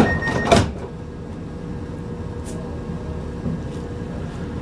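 Train's sliding passenger doors shutting: two knocks in the first half second as a steady high tone stops, then the carriage's steady low hum.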